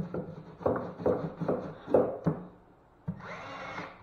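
Wood knocking several times as a backing strip is pushed and tapped into place against the framing. About three seconds in, a cordless drill runs steadily for about a second, driving a screw into the strip.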